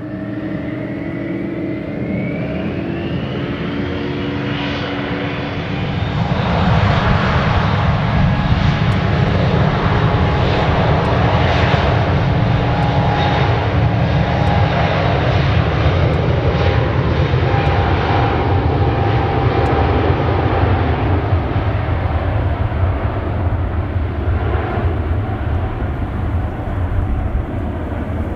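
Boeing 777-200 twin-engine airliner's turbofans with a whine rising in pitch over the first few seconds. About six seconds in they grow louder and settle into a dense, steady rumble and roar of high thrust as the jet rolls down the runway.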